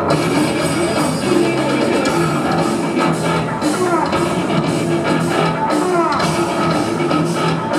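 Loud live rock music from a band: electric bass, electric guitar and drums playing together, with a few short sliding notes.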